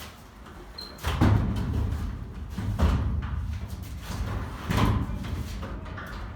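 Three heavy bangs about a second and a half to two seconds apart, each followed by a low lingering rumble.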